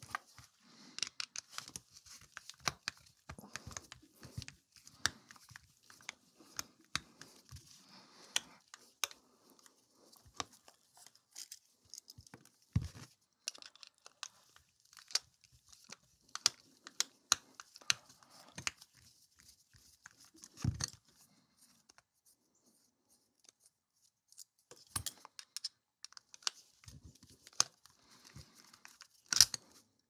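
Small clicks, ticks and scrapes of a precision Phillips screwdriver working screws out of a laminated steel Master Lock No. 15 padlock, with the loose screws and the lock handled on a rubber mat. Two heavier knocks, about 13 s and 21 s in, stand out.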